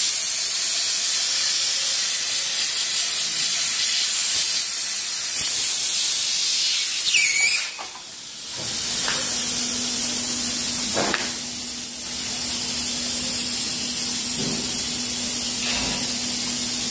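Hot air welding machine blowing hot air from its welding nozzle, a steady high hiss. About eight seconds in the hiss dips briefly, and after that a low steady hum runs under it.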